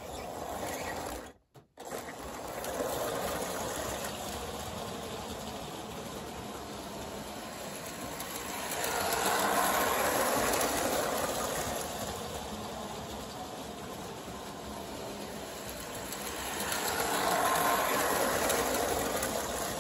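Lionel toy train running around its track, the motor and wheels making a steady mechanical rattle that swells twice as the train passes close by. The sound cuts out briefly about a second and a half in.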